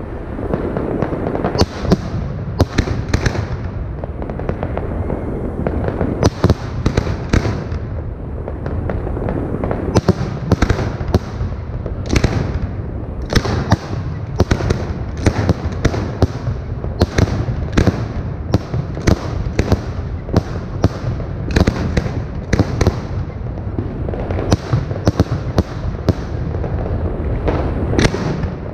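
Aerial fireworks display: a rapid, irregular run of sharp bangs from shells bursting, one after another, over a continuous low rumble.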